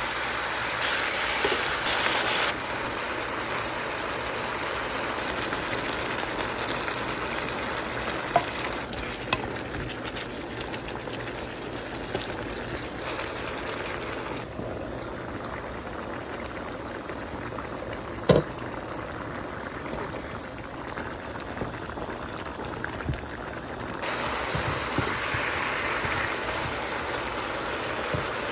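Chicken stewing in a pot, a steady hiss of sizzling and bubbling whose tone changes abruptly a few times. A few short sharp knocks, the loudest about eighteen seconds in.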